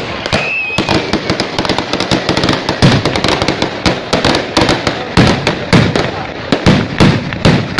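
Firecrackers going off in rapid, irregular bangs, several a second, some much louder than others.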